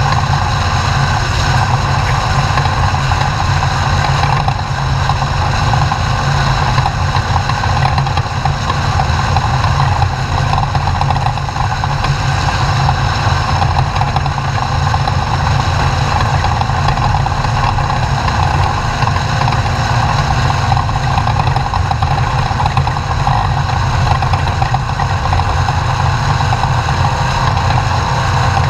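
Class 2000 desert off-road race truck's engine running steadily and loudly under a dense low rumble of chassis and terrain noise, unbroken throughout.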